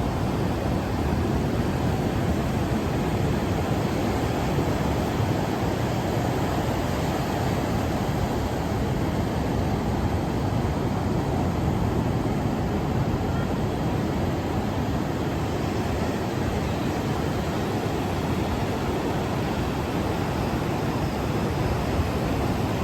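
Steady, unbroken rush of ocean surf breaking on a beach.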